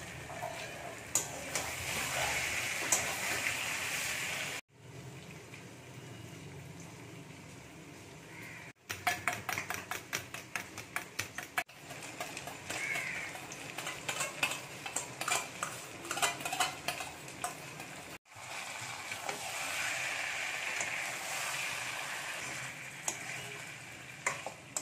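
Chicken pieces in masala sizzling in a steel kadai while a metal spatula scrapes and clicks against the pan in quick strokes. The sound breaks off abruptly several times between short segments.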